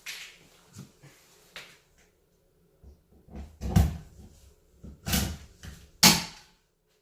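About six irregular wooden knocks and clunks, typical of plywood sheets being handled and fixed in place, the two loudest near the end.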